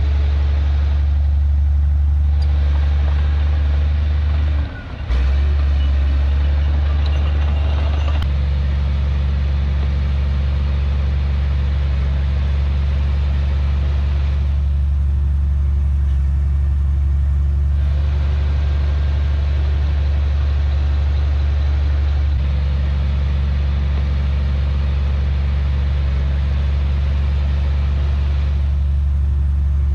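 Heavy diesel engine of earthmoving machinery running steadily with a deep, loud drone, briefly dropping away about five seconds in before picking up again.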